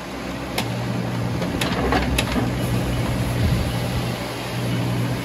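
Bobcat E19 mini excavator's three-cylinder Kubota diesel running steadily, with three short sharp knocks in the first couple of seconds.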